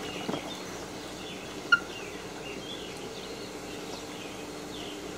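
Outdoor ambience: a steady low hum and hiss with a few faint bird chirps, and one short, sharp chirp a little under two seconds in.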